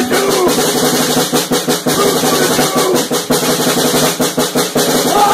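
Music: a rapid snare drum roll over a few held notes, cutting off abruptly at the end.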